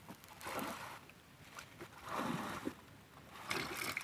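A small boat being hauled through shallow swamp water and thick water plants: water sloshing and leaves brushing the hull, in three surges about a second and a half apart.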